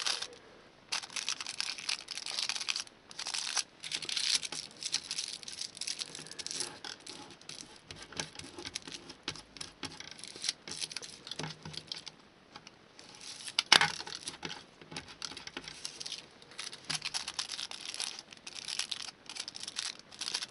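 Aluminium kitchen foil crinkling and tearing in irregular bursts as it is folded tight by hand around a gasket washer. One sharp tap about two-thirds of the way through.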